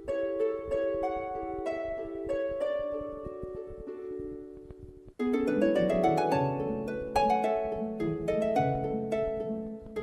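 Background music of plucked string notes. About five seconds in it drops out for a moment and a fuller passage with lower notes begins.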